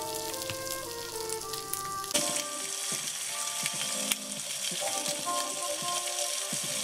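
Homemade bacon strips sizzling and crackling in a frying pan, the sizzle brighter from about two seconds in. Soft background music plays over it.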